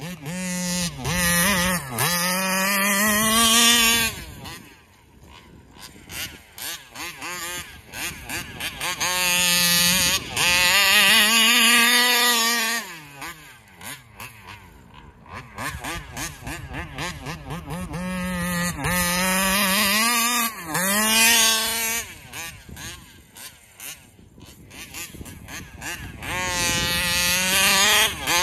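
Taylor 35cc reed-valve two-stroke engine in a large-scale RC car, running hard as the car makes four passes about nine seconds apart, each swelling and falling away in loudness and pitch. Between passes it is quieter and uneven. The engine keeps fluttering, which the owner puts down to the carburetor, perhaps a plugged venturi.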